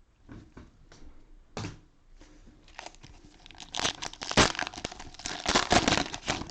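Cellophane wrapper of a cello pack of football trading cards crinkling and tearing as it is handled and opened. A few light ticks first, then dense crinkling from about three seconds in.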